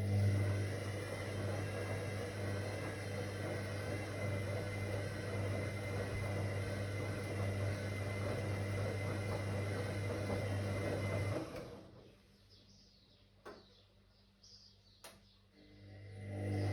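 Whirlpool AWOC 8283 washing machine's motor running with a steady hum as the drum turns, stopping after about eleven seconds. After a pause with a couple of faint clicks, the motor starts up again near the end: the on-off pattern of a wash cycle turning the drum.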